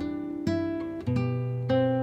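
Slow acoustic guitar music: notes and chords plucked about every half second, each ringing and fading.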